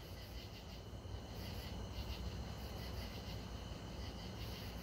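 Faint steady background noise in a pause between scanner radio transmissions: a low hum under a light high hiss.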